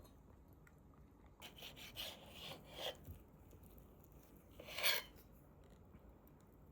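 A knife slicing through skin-on boiled pork on a cutting board: a few short strokes about a second and a half in, then one louder stroke about five seconds in.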